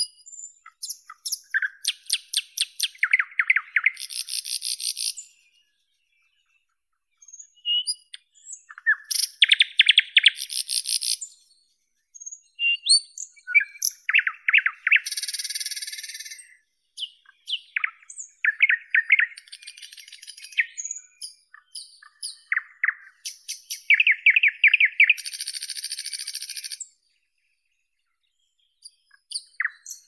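Songbird singing: phrases a few seconds long of rapidly repeated notes, short whistles and high buzzy trills, separated by pauses of one to two seconds.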